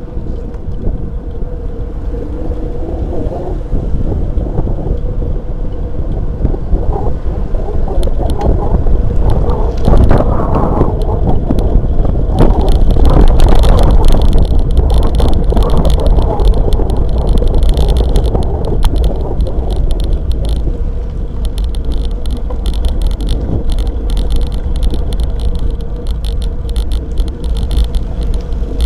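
Wind rumble and tyre noise on a handlebar-mounted action camera's microphone as a drop-bar bicycle rolls along an asphalt street, with light clicks and rattles from the bike and mount over the road surface. The rumble grows louder for a few seconds around the middle.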